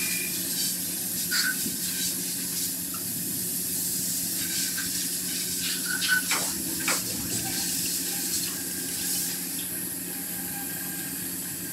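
Lathe running with a large diesel engine crankshaft turning in it: a steady hiss over a low steady hum, with a few short squeaks about six and seven seconds in.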